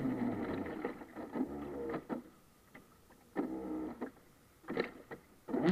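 Radio-controlled model boat's onboard motor throttled back and spinning down with falling pitch, then given three short bursts of throttle. It comes back up to a steady run just before the end.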